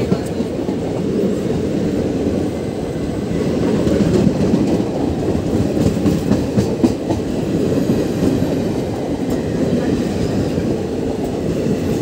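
Indian Railways passenger coaches of a departing express rolling past close by, a steady rumble of wheels on rail with some clattering over the rail joints.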